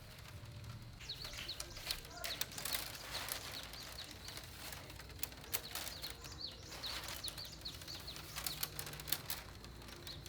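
Small birds chirping over and over in short, quick notes, with scattered sharp clicks and rustles of bamboo strips being handled.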